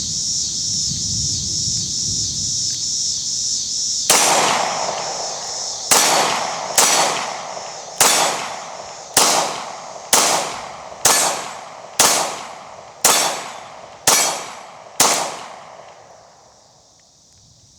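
Glock 22 pistol in .40 S&W fired eleven times at a steady pace of about one shot a second, each report dying away over about half a second. A steady high-pitched drone runs underneath.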